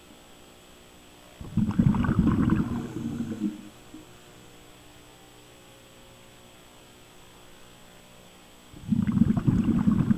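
A scuba diver's exhaled breath bubbling out of the regulator, heard underwater: two bursts of bubbling about two seconds long, one about a second and a half in and one near the end, several seconds apart as the diver breathes.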